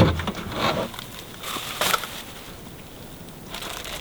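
Camp clean-up handling noises: a sharp knock at the start, then a few crunching, rustling bursts as things are gathered and packed away.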